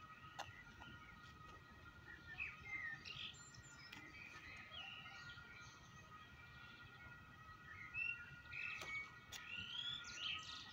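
Small songbirds chirping and singing in short, quick phrases, busiest about two seconds in and again near the end.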